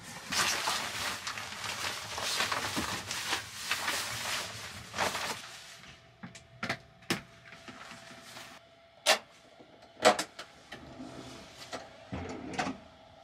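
Sunrise Seto sleeper train, a 285-series electric train, in motion and heard from on board. A rushing noise lasts about five seconds, then it goes quieter, with a steady hum and a handful of sharp clicks and knocks.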